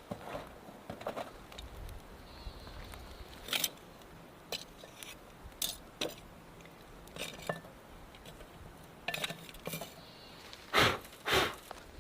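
Scattered light clinks and scrapes of kitchen utensils and cookware, with a couple of louder bumps near the end.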